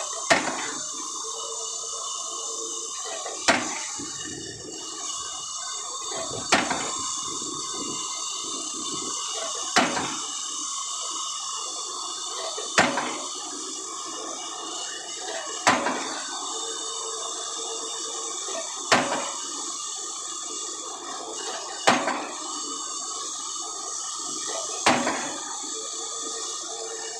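Pile-driving hammer striking a precast concrete spun pile: nine heavy blows, evenly spaced about three seconds apart, each with a short ring. A steady noisy rush runs underneath.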